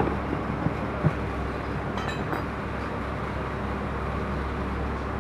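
A steady low machine hum, with a faint clink about a second in.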